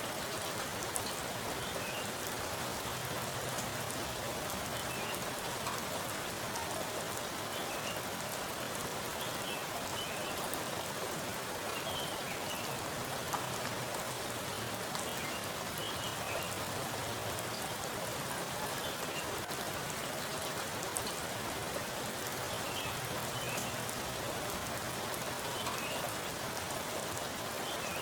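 Heavy rain falling steadily onto a pool of standing water, a dense even hiss with individual drops splashing and ticking through it.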